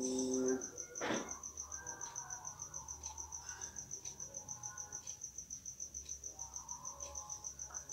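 A cricket chirping in a fast, even, high-pitched pulse throughout. A man's held chanted note ends about half a second in, and a short rushing sound follows about a second in.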